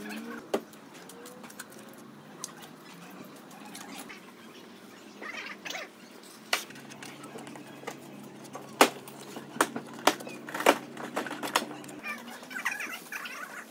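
Masking tape and film being handled and pressed onto a car body panel: scattered sharp clicks and crinkles, thickest in the second half. Faint chirps and a low steady hum run under them for part of the time.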